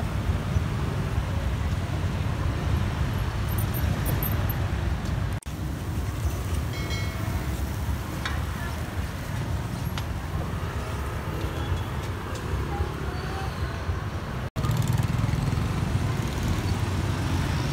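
Street ambience: a steady low rumble of road traffic with voices mixed in. The sound drops out abruptly twice, about five seconds in and again near fourteen seconds.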